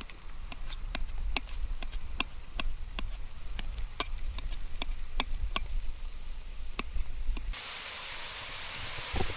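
A knife chopping cooked potato on a metal camp plate: sharp taps of the blade on the plate, about three a second. About seven and a half seconds in, this gives way to onion and sausage meat sizzling steadily in a Dutch oven.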